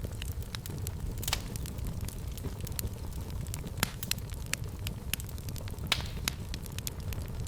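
Fireplace fire crackling and popping steadily over a low rumble of the flames, with a few louder pops.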